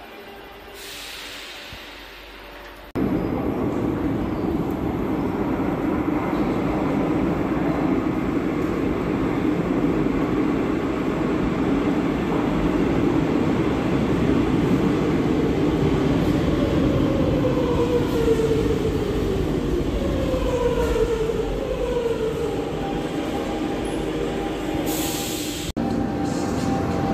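Metro train pulling into an underground station: a loud steady rumble of wheels on the rails, with the electric traction motors' whine falling in pitch as it brakes. The rumble cuts in suddenly about three seconds in, after a quieter stretch with a short hiss.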